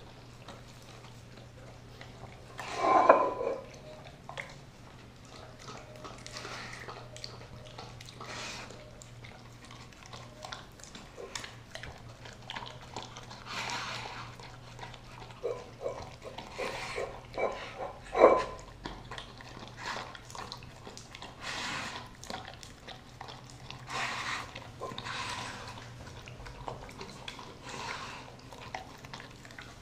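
A Doberman licking and chewing a raw turkey breast in a ceramic bowl, with wet, irregular licking and gnawing sounds. Twice, about three seconds in and again just past halfway, the bowl knocks sharply on the tile floor.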